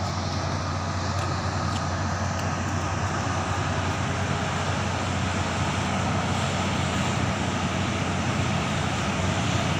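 Heavy diesel engines of MAN TGS 40.440 6x6 trucks and a wheel loader labouring up a steep grade under a very heavy load: a steady, dense drone with a deep hum, growing slightly louder as the convoy climbs.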